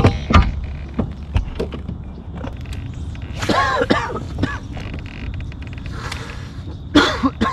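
Knocks and a creak of rod and gear handled in a plastic fishing kayak, sharpest in the first second and a half. Squeaky calls come about three and a half seconds in and again near the end.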